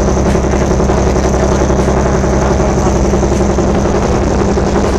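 Ferry boat's engine running steadily under way, heard from on board as a loud, even drone.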